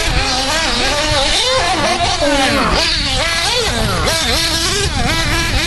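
Radio-controlled off-road buggies running on a dirt track, their motors making a buzzing sound that keeps rising and falling in pitch as they speed up and slow down.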